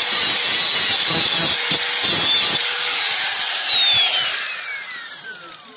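Angle grinder grinding against the rusted steel of a car chassis rail, a loud grating noise over a steady high whine. About halfway through it is switched off and the whine falls steadily in pitch as the disc spins down and fades.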